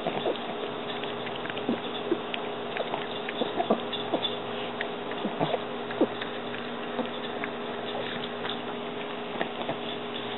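A dog eating greedily, grunting, with short irregular mouth noises over a steady background hum.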